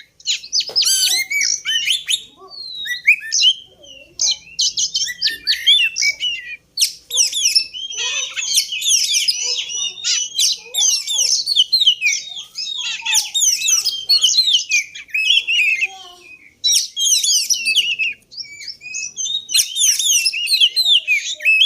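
Oriental magpie-robin (kacer) singing: rapid, varied strings of high whistled and chattering notes in bursts, with short pauses between them. It is a lure song played to provoke a quiet kacer into full song.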